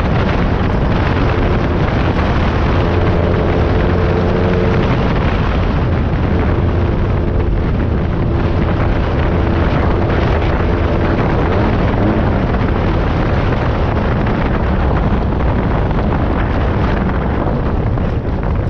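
Class 9 buggy's air-cooled VW engine running under load as the car drives off-road, mixed with steady chassis rattle and wind noise in the open cockpit. The engine is down on power.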